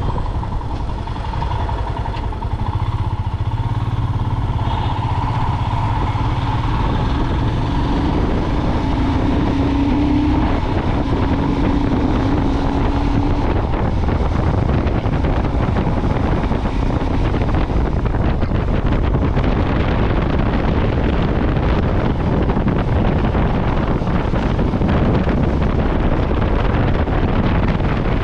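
Motorcycle engine running steadily while riding, with rushing wind on the microphone that grows stronger and covers the engine from about halfway.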